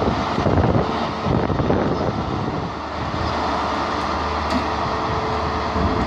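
Class 43 HST diesel power car pulling slowly past, its diesel engine running with a steady rumble over the sound of the train rolling on the rails.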